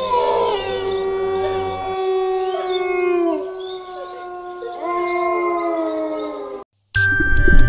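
Wolves howling together: several long howls at different pitches overlap, some held steady and some sliding down at their ends. The howling cuts off abruptly near the end, and loud music starts.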